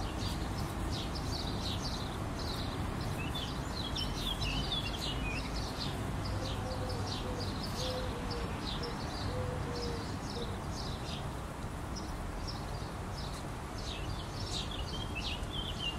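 Small birds chirping and twittering in short high calls throughout, with a short run of lower, evenly spaced notes near the middle, over a steady low background rumble.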